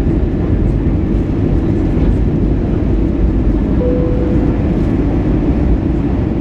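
Steady cabin noise inside an Airbus A320neo on approach: a constant low rumble of engines and airflow. A short steady tone sounds for under a second just past the middle.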